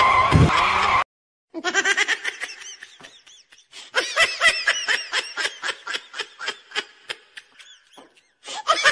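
A loud screech cuts off abruptly about a second in. Then comes a long run of rapid, high-pitched laughter, a quick string of 'ha-ha' pulses several to the second, with a short break partway and a fresh burst near the end.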